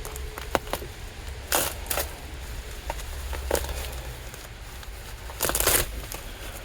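Packing material being handled as a shipped package is unpacked: short bursts of crinkling and tearing, the longest near the end, over a faint low hum.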